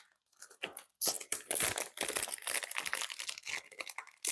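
Packaging being handled and torn open as the kit is unwrapped: a few faint crackles in the first second, then dense, irregular crinkling and tearing to the end. It is loud enough that she apologises for the sound.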